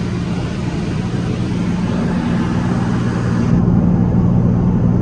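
Light aircraft's engine and propeller droning steadily, heard inside the cabin in flight. The low hum holds even throughout, and the airy hiss above it thins out about three and a half seconds in.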